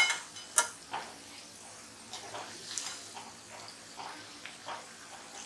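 Onion bhaji deep-frying in hot oil in a kadhai, sizzling and crackling, with a few sharp clicks of a metal slotted spoon against the pan in the first second.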